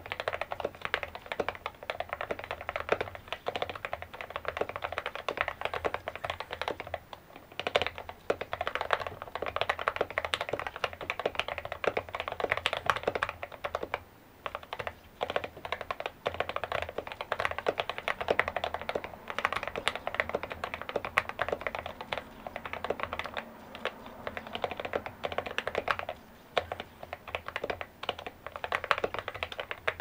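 Fast typing on an SK64S 60% mechanical keyboard with lubed and filmed Gateron Optical Silver linear switches, OEM-profile keycaps, and a tape and case-foam mod, giving a clacky sound. The keystrokes run in dense runs with a few short pauses.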